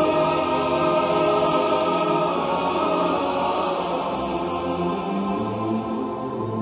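Music with long held notes playing from a vinyl record on a Heyday belt-drive turntable, sent through the turntable's built-in phono preamp to a stereo receiver and heard over its speakers.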